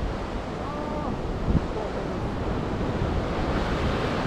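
Rough sea surf washing against rocks, with wind buffeting the microphone: a dense, steady rushing that slowly builds. There is a brief thump about one and a half seconds in.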